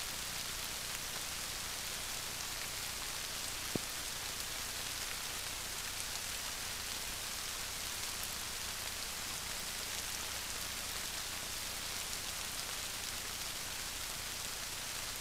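Steady rain falling on a grassy meadow, an even hiss dotted with small drop ticks, with one sharp click a little under four seconds in.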